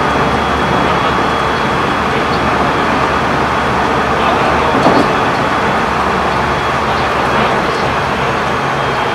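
JR Central 373 series electric train running at speed, heard from inside the motor car: a steady rumble of wheels on rail and running gear. A faint high tone comes and goes, and there is a single brief knock about five seconds in.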